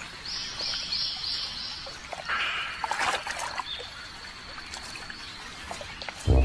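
Shallow water splashing and trickling as mudskippers scuffle in a small pool, with a louder splash about two to three seconds in. Four short high chirps sound in the background near the start, and a low thump comes at the very end.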